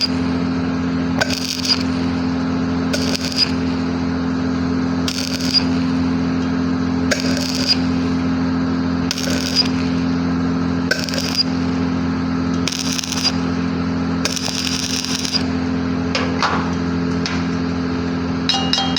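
Stick-welding arc crackling and sizzling on a pipe joint over the steady hum of the welding machine, with a brighter surge of sizzle about every two seconds.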